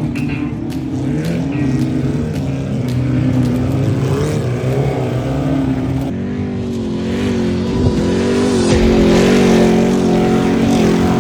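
Off-road race vehicle engines running hard, their pitch rising and falling with the revs. The engine sound changes abruptly about six seconds in.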